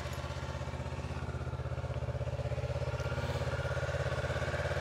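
Small motorcycle engine idling steadily with an even, rapid pulse; it sounds very small.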